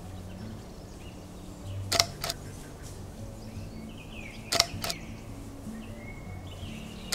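Camera shutter clicking twice, and a third time at the very end, each a quick double click, about two and a half seconds apart, over soft background music.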